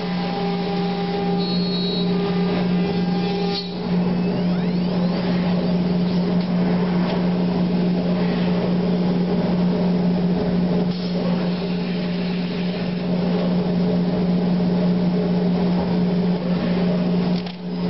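CNC router machinery running with a steady hum. About four seconds in, the steady higher tones drop out and the sound turns noisier and rougher.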